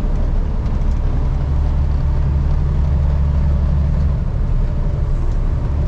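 Truck engine and road noise: a steady low drone, its deepest part easing off about four seconds in.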